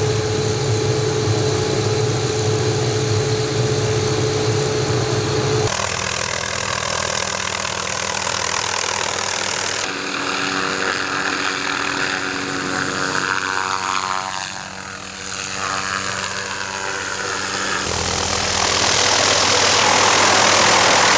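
MD 500 five-bladed light helicopter with its single turboshaft engine, in a run of short clips. For the first few seconds its steady high turbine whine and rotor sound run while it sits on the ground. It then hovers and flies low, with a falling sweep in pitch about halfway through as it passes, and it grows louder near the end.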